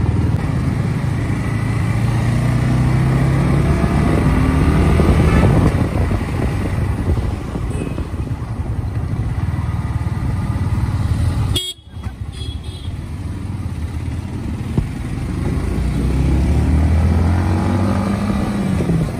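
Motorcycle engine running as the bike rides off down the road, its pitch rising as it speeds up, with a vehicle horn tooting. Partway through the sound cuts out for an instant, then the engine runs on and rises again near the end.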